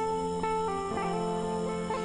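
Background instrumental music: plucked guitar notes making a melody that changes every fraction of a second.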